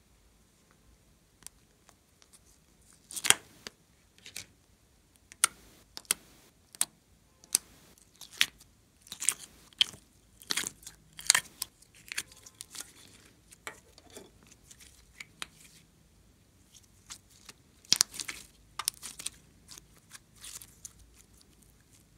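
Soft modelling clay being pulled out of its clear plastic heart-shaped case and stretched by hand: irregular sticky clicks and crackles, with a few sharper snaps of the plastic shell.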